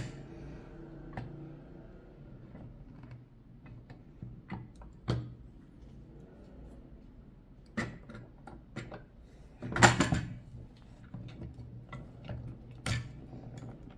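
Irregular plastic clacks and knocks from a hand-press button pin maker being handled, as its lever handle and swivelling die tray are moved. The loudest is a short cluster of knocks about ten seconds in.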